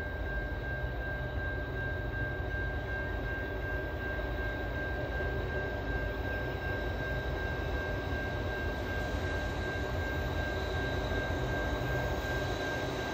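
Drone propellers whining with a steady high-pitched tone, over a continuous low rumble.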